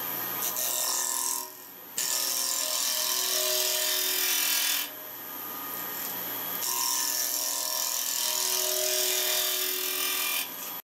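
Wood lathe spinning a blank while a carbide-tipped Mate #1 cutter shears its face, making a steady hiss of cutting over the lathe's even motor hum. The cutting hiss swells in two long passes, one starting about two seconds in and the next a couple of seconds after it, with a softer stretch between.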